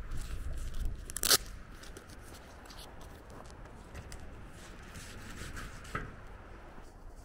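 Footsteps on a wet dirt lane, with low wind rumble on the microphone in the first second or so and one sharp click about a second in.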